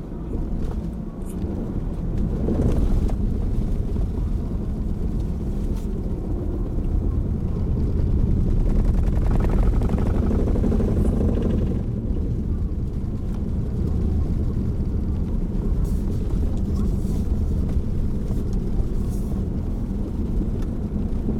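Steady low rumble of a car's engine and tyres heard from inside the cabin as it drives off the ferry down the loading ramp, growing louder for a few seconds around the middle.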